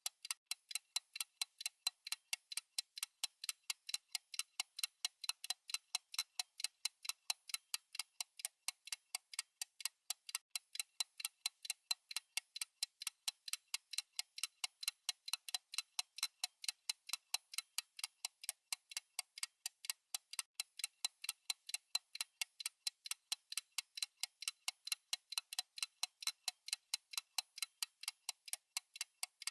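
Fast ticking sound effect of a countdown timer: a rapid, even run of light, bright ticks at a constant rate.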